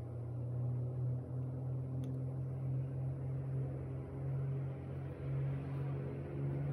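A steady low machine hum with faint overtones, wavering slightly in strength.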